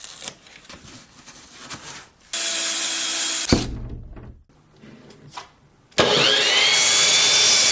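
Power saw cutting 2x10 lumber in two runs: a short cut about two seconds in, then a longer one near the end that opens with a rising whine as the motor spins up.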